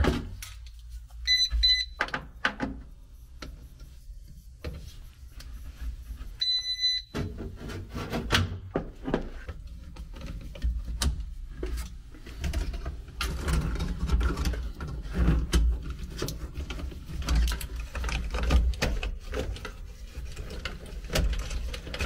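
Two short electronic meter beeps, one about a second in and another about seven seconds in, then a run of small clicks and rattles as hands work the air handler's control wiring to swap out the heat-strip relay.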